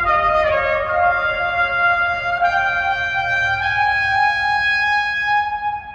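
Solo trumpet playing a slow phrase of long held notes that step upward in pitch. The last note is held and ends near the close.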